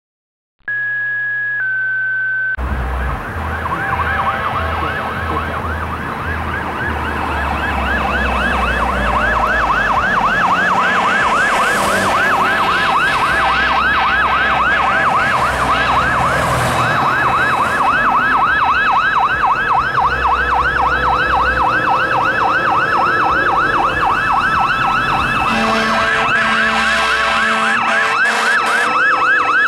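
Fire engine's electronic siren on a fast yelp, sweeping rapidly up and down several times a second over the rumble of the truck, getting louder as the pumper approaches. A short steady tone comes before it starts, about two and a half seconds in, and lower pulsing tones join near the end.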